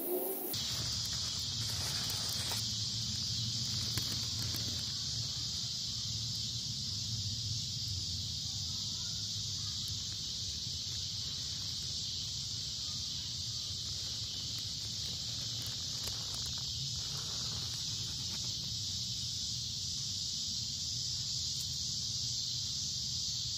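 Steady, high-pitched chorus of night insects over a low rumble.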